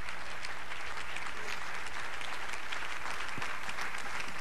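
Audience applauding: dense, steady clapping from a large crowd that keeps an even level throughout.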